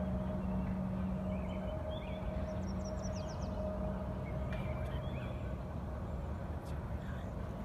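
Steady low hum of an idling vehicle engine, with birds chirping over it and a quick high trill a few seconds in.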